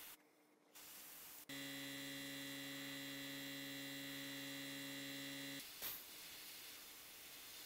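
A steady electrical hum made of several fixed tones starts abruptly about a second and a half in and stops abruptly about four seconds later. Soft air hiss sits around it, and a short click comes just after the hum stops.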